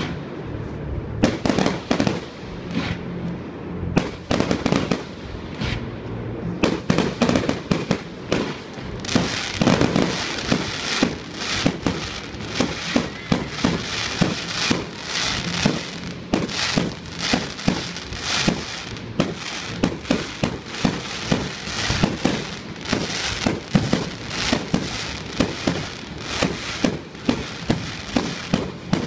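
Fireworks display: aerial shells going off in a rapid, irregular string of sharp bangs and pops. The reports come thicker and almost without a break from about nine seconds in.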